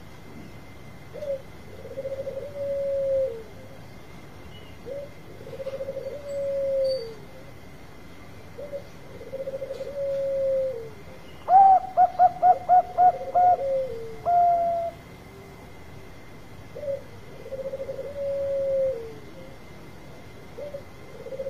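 Zebra dove cooing: a soft rolling coo phrase that ends in a longer falling note, repeated about every four seconds. Near the middle comes the loudest part, a quick run of about seven notes followed by a single held note.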